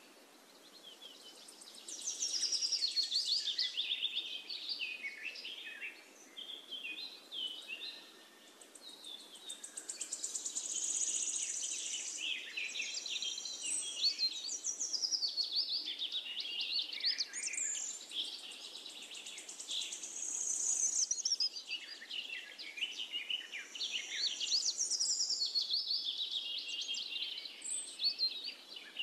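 Birds chirping and singing: many quick, high chirps and trills that swell and fade in waves every few seconds.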